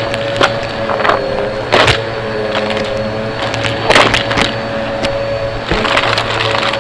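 A vacuum cleaner's motor runs steadily while debris crackles and clicks through the hose and nozzle, with louder sharp crackles about two and four seconds in.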